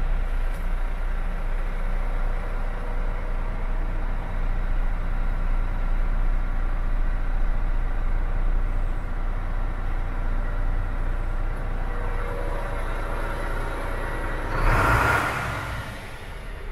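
Iveco Stralis 450's six-cylinder diesel idling steadily, heard from inside the cab. About 15 seconds in comes a short hiss of compressed air from the truck's air system.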